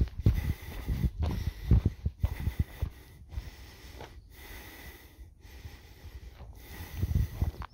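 A person breathing hard close to the microphone, about one breath a second, with thudding footsteps on a dirt trail in the first few seconds and again near the end.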